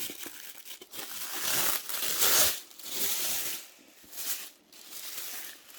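Keyboard packaging being handled and opened: rustling, crinkling and scraping, loudest about two seconds in.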